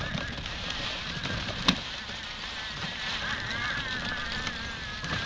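Child-sized ride-on model tank driving over snow-covered pavement: steady running noise from its drive and tracks, with a wavering whine from about three seconds in and one sharp click about a second and a half in.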